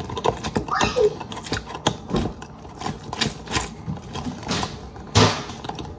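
Kitchen utensils and dishes clattering: a run of irregular clicks and taps, several a second, with a louder brief rush of noise about five seconds in.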